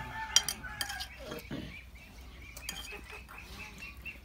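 Metal spoons clinking against ceramic bowls and plates as food is served: a few sharp clinks, the loudest about half a second in, another just under a second in and one more near the three-second mark.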